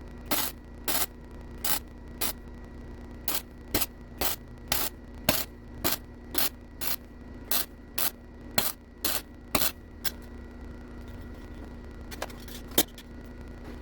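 Welder laying a row of short stitch welds on a cracked steel subframe, about two hissing bursts a second, then a few single bursts near the end, over a steady machine hum.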